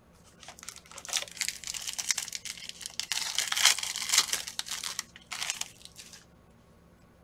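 Foil trading-card pack being torn open and crinkled by hand, a dense rustling that starts about a second in and stops about six seconds in.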